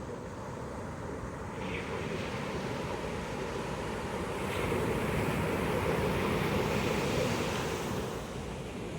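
Ocean surf breaking on a beach: the wash of the waves builds about a second and a half in, is loudest through the middle, and eases shortly before the end.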